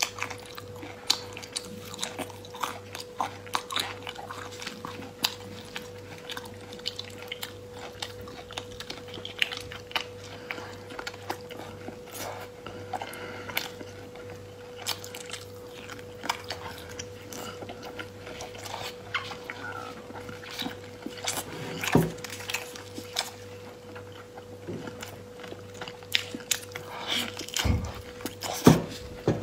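Close-miked chewing and lip-smacking of soft, fatty braised pork belly: irregular wet smacks and bites, with a few louder smacks in the second half. A steady faint hum runs underneath.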